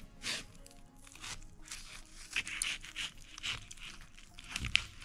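Large knife sawing down through a watermelon's rind and the gelatin-set fruit filling: a series of short, crisp crunching strokes, roughly one or two a second, loudest near the end.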